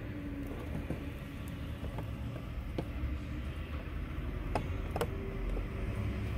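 Steady low background rumble with a few faint scattered clicks.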